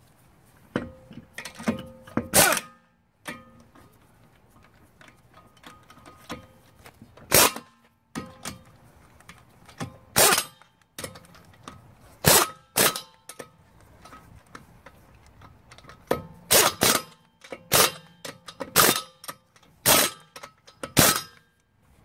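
Air impact wrench running lug nuts onto a car wheel in short bursts, about fifteen in all, several quick ones in a row near the start and a tight run of them near the end.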